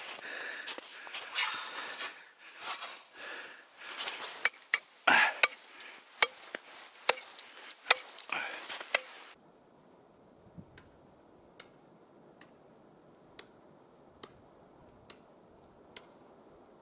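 Ice being chopped open in a dug-out ice hole on a frozen lake with a hand tool: crunching and scraping at first, then a run of sharp strikes on the ice. About nine seconds in the sound cuts off to a quiet background with faint ticks about once a second.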